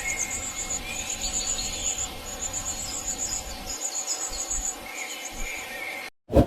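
High-pitched, insect-like trilling in repeated bursts, with some bird chirps beneath it. Just after six seconds the sound cuts out suddenly and a single loud thump follows.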